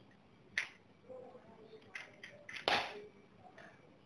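A handful of short clicks and knocks from the Simpex 333's aluminium tripod legs and plastic fittings as they are handled and unfolded, the sharpest just before three seconds in.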